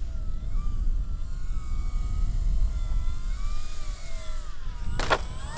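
RC model airplane's motor running in flight, its pitch gliding up and down as it moves, over a low rumble. A sharp crack about five seconds in.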